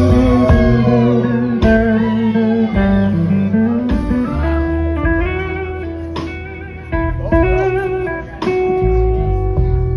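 Live blues-rock band heard through a venue's PA: an electric guitar plays a lead of bent, sustained notes over a bass line and drums.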